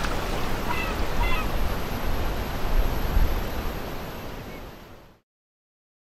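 Wind buffeting the microphone over waves lapping in a small harbour, with a couple of short bird calls about a second in. The sound fades out to silence about five seconds in.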